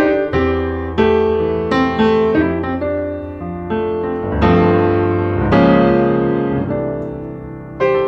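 Slow solo piano music, chords struck about once a second and left to ring.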